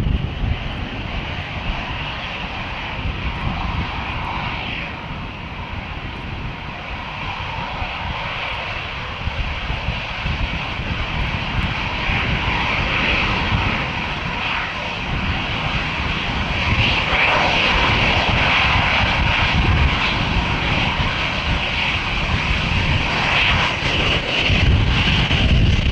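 Jet airliner engines running close by, a rushing whine that grows louder through the second half. Strong gusty wind buffets the microphone underneath.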